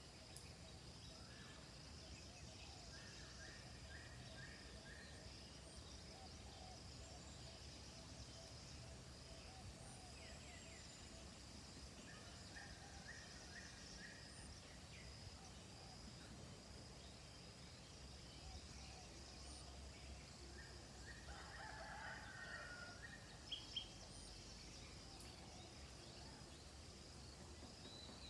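Faint rural afternoon ambience: a steady high insect drone with scattered bird calls, including two short runs of four or five quick repeated notes and a busier flurry of calls about three-quarters of the way through. Two sharp ticks sound just after the flurry.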